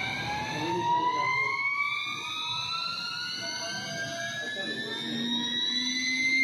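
CNC router spindle spinning up: a steady whine that keeps rising slowly in pitch as the motor ramps up to speed.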